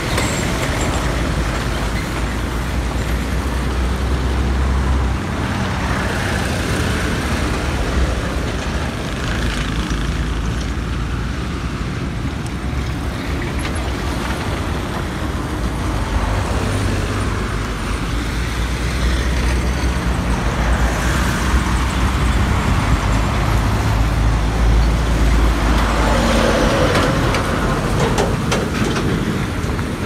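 Road traffic driving past: cars, minibuses and heavy trucks with engines running and tyres on the road, under a steady low rumble that swells several times as vehicles go by.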